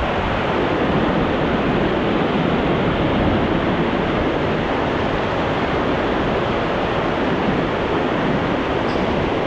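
Waterfall and river in spring runoff: a loud, steady rush of water.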